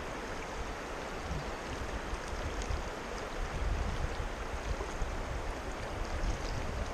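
Fast river water rushing steadily around a wading angler in the Neversink River, with a low rumble that comes and goes beneath it.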